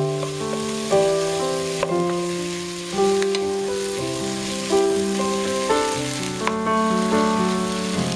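Slow instrumental background music, with a new sustained note or chord about every second. Under it is the steady sizzle of zucchini and eggplant frying in oil in a pot while they are stirred with a wooden spoon.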